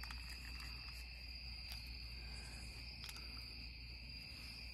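Night insect chorus: a steady, unbroken high trill at two pitches, with a few faint clicks.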